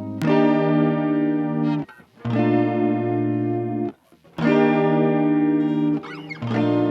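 Fender Telecaster electric guitar playing slow sustained chords through a lush chorus effect. There are four chords, each ringing for just under two seconds, with short breaks between them.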